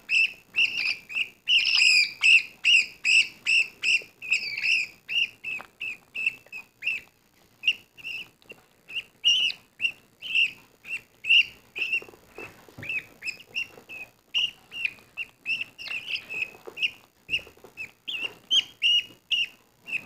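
Baby budgerigar chicks, about two to three weeks old, cheeping in quick short high calls, about two or three a second, while being spoon-fed hand-feeding formula: the food-begging calls of young budgies.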